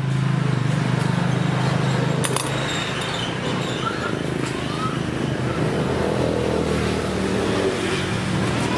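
A small engine running steadily, a constant low hum, with one sharp click about two seconds in.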